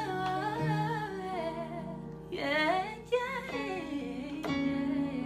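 Music playing: a singing voice in two gliding phrases over held chords.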